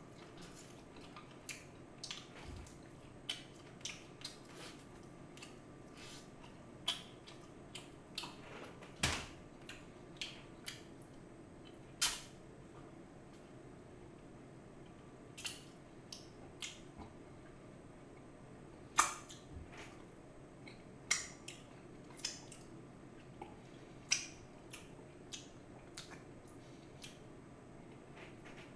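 Eating sounds of seasoned fried chicken: bites, chewing, and wet lip smacks and finger licks. They come as sharp, irregular clicks, a few of them much louder.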